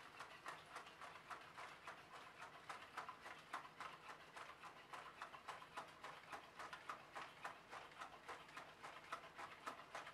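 Aldebaran Nao V4 humanoid robot walking, a faint, quick and even run of clicks as it steps along.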